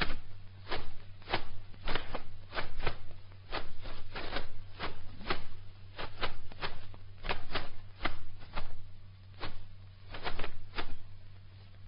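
A run of sharp clicks at uneven spacing, about one to three a second, over a steady low hum.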